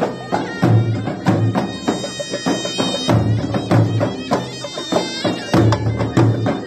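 Tunisian hadra procession music: frame drums and hand percussion beating a fast, steady rhythm with deep drum booms, under a shrill, nasal reed wind instrument playing held, wavering notes.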